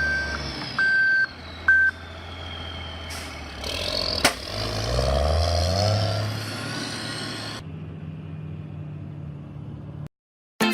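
Heavy road-construction machinery running, with a reversing alarm beeping three times in the first two seconds. The engine then revs up around the middle and settles, and near the end gives way to a quieter steady engine hum.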